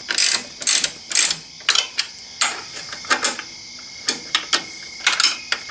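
Socket ratchet clicking in short rasping strokes, two or three a second, as the bottom bolts of a motorcycle foot-peg brace are snugged up.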